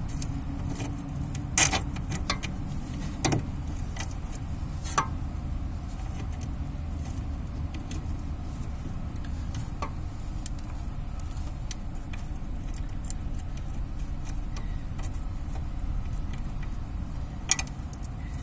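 A handful of sharp metallic clinks, a few seconds apart, as bolts and washers are handled and fitted at a ball joint on a car's lower suspension arm, over a steady low rumble.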